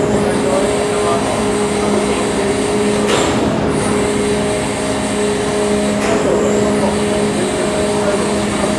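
Steady engine drone, several even hum tones held over a rumble, with a brief rush of noise about three seconds in.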